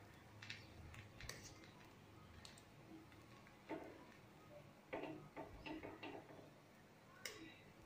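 Faint taps and scrapes of a spoon spreading butter over bread slices on a griddle pan: scattered single clicks, with a quick run of about five taps a little past the middle.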